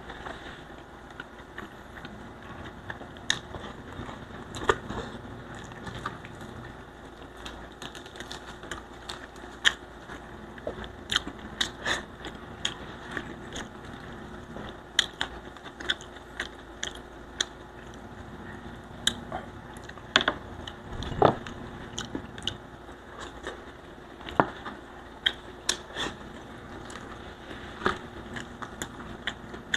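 Eating sounds of crispy fried tilapia: many sharp, irregular crunches, bites and chewing, with the fried skin and fins being torn apart by hand.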